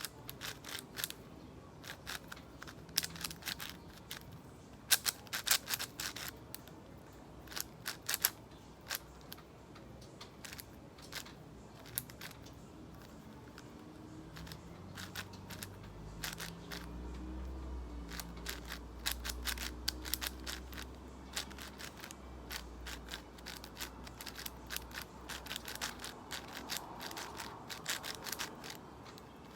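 Plastic clicking and clacking of a YJ MGC 6x6 magnetic speed cube being turned in quick irregular bursts during a solve. A faint low hum comes in about halfway through and fades out a few seconds later.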